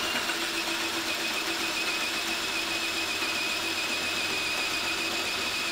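Hole saw in a tube notcher cutting through a small-diameter pipe: a steady machine run with a thin, high, steady whine over the cutting noise.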